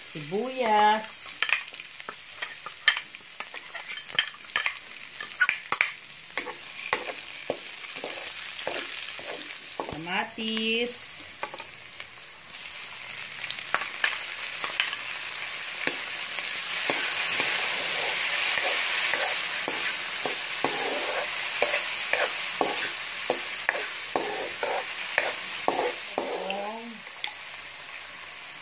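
Diced onion, garlic and tomato sautéing in hot oil in a pan, with a steady sizzle and the ticks and scrapes of a metal spatula stirring against the pan. The sizzle swells about halfway through as the tomatoes go in.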